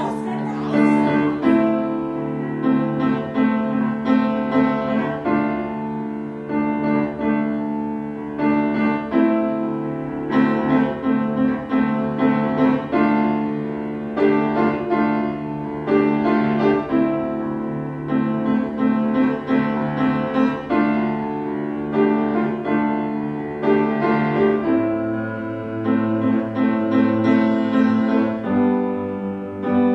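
Piano music: a repeating figure of quick notes over a held low note, the low note dropping lower about 25 seconds in.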